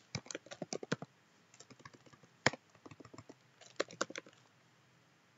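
Typing on a computer keyboard: quick runs of key clicks with one harder keystroke about two and a half seconds in, then stopping for the last second.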